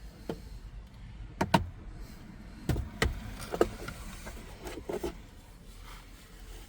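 Scattered light clicks and knocks of needle-nose pliers working in the plastic cabin air filter housing, pulling out mouse nest material.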